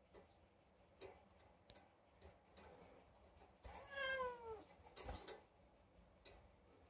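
A cat meows once, a single drawn-out call falling slightly in pitch about four seconds in. Faint scattered clicks are heard throughout, with a louder knock about five seconds in.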